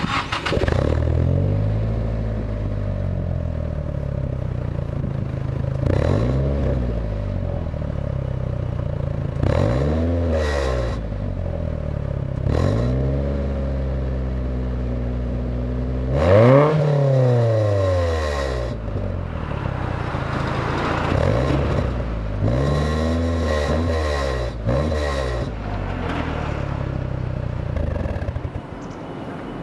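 Nissan Silvia S15's exhaust through a GENJIMIKI Moderate Type-AK2 muffler with its silencer insert fitted, idling and revved up and back down about eight times, the loudest rev a little past halfway. With the silencer in, the exhaust is on the quiet side, though the owner finds that the insert buzzes badly from slight vibration.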